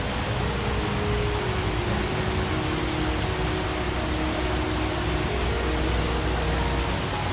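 Forest stream: water rushing and gurgling steadily as an even hiss.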